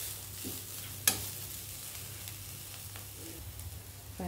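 Chopped carrots and beans sizzling softly in a non-stick kadai over a low gas flame while a spatula stirs them, with a steady hiss and one sharp tap about a second in.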